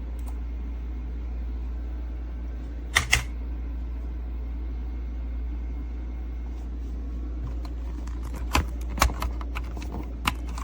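Sharp clicks from a mechanical keyboard over a steady low hum: two quick clicks about three seconds in, then a short run of several clicks in the last two seconds.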